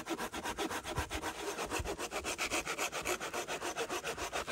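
Bahco Laplander folding saw cutting through a dry, dead log with quick, even back-and-forth strokes, about eight or nine a second.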